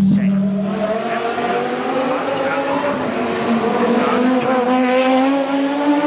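Audi Sport quattro S1 rally car's turbocharged five-cylinder engine running hard under power, its note climbing slowly and steadily as the car pulls.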